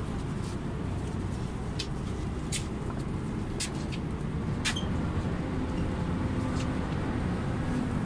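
Volvo Carrus city bus heard from inside while it is moving: a steady low engine and road rumble, with sharp rattles and clicks from the body now and then.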